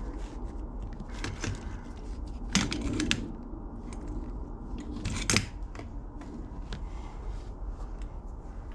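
Loose wires of a Yamaha Banshee wiring harness being handled and dragged across the bench, with a few sharp snips of a cutting tool, the loudest about two and a half, three and five seconds in.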